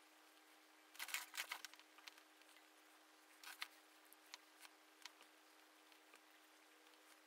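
Faint taps and clicks from brush and hand work on a small stretched canvas: a quick cluster about a second in, a couple more around three and a half seconds, then scattered single ticks, over a faint steady hum.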